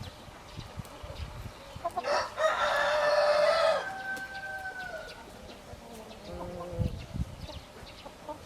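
A rooster crows once, about two seconds in: a loud, long call whose last held note fades out a second or so later. Fainter chicken sounds lie around it.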